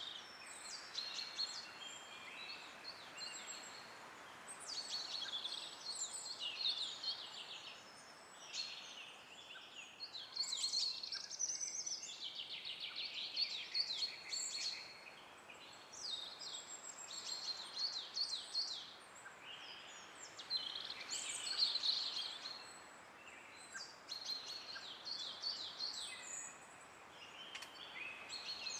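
Songbirds singing, short high rapid chirping phrases one after another, over a faint steady hiss of wind.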